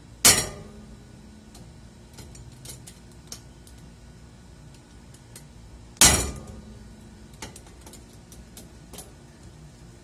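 Two sharp claw-hammer blows about six seconds apart on a hardened-steel bicycle U-lock chilled with upside-down air-duster spray, each ringing briefly, with faint metallic clicks between them.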